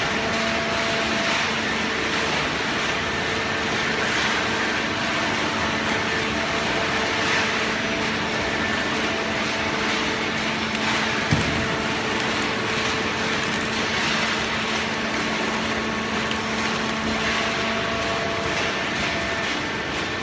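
Waste paper baling press running steadily: a continuous mechanical hum with several steady tones over a noisy background, and a single knock about eleven seconds in.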